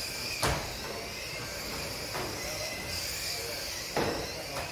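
Small model race cars running on a carpeted track, a steady high whine throughout. Two sharp knocks, about half a second in and near the end.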